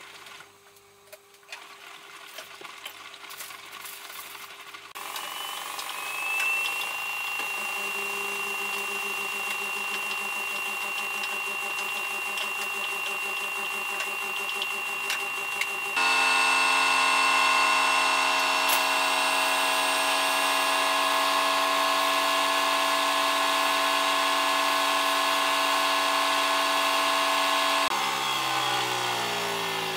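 Samsung Eco Bubble front-loading washing machine running its wash cycle, the drum motor whining as it turns the drum. The whine rises in pitch about six seconds in and steps louder around halfway through. Near the end it falls away in pitch as the drum slows.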